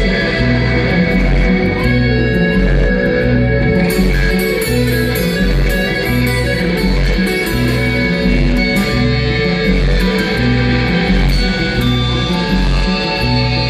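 Live band playing an instrumental passage with no vocals: guitar over a repeating bass line with a steady beat.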